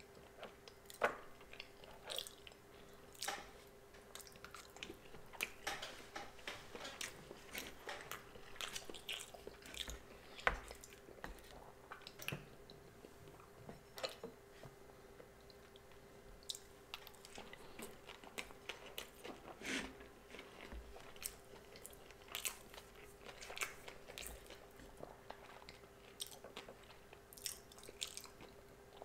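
Close-miked chewing and biting of sushi, with irregular soft crunches and mouth clicks. A faint steady hum runs underneath.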